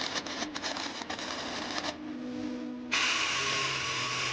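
Workshop noise: a run of quick metallic clicks and knocks, then a powered tool or machine starts abruptly about three seconds in and runs with a steady loud hiss and a low hum.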